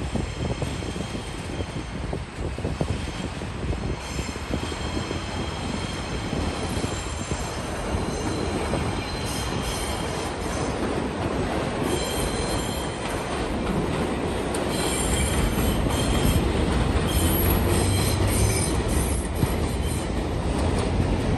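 A train running on rails, a steady rumble with high wheel squeal that comes and goes. The rumble and squealing grow louder past the middle.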